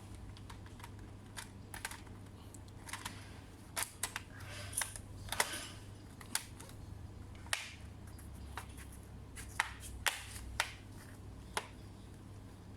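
Light, irregularly spaced clicks and taps of hands working on an Acer Nitro 5 laptop, over a steady low hum.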